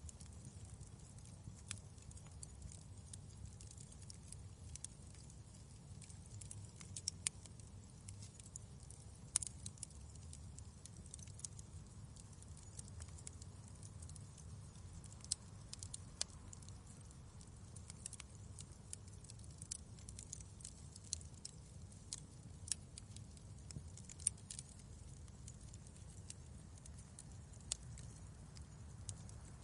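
Wood fire crackling in a fireplace: a soft steady low rumble of flames with frequent irregular sharp crackles and occasional louder pops.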